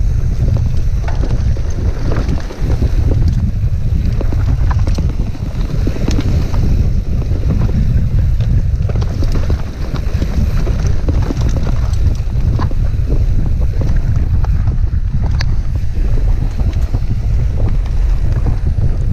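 Wind buffeting the microphone of a mountain bike's on-board camera during a fast descent on a dirt trail, a heavy steady rumble. Scattered clicks and rattles from the bike and tyres jolting over rocks and ruts.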